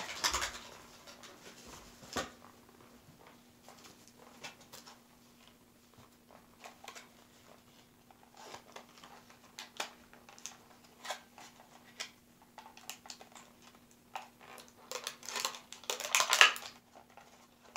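Clear plastic toy packaging crinkling and crackling as fingers handle and pick at it, in scattered small clicks and rustles that grow louder and busier about 15 seconds in. A faint steady hum sits underneath.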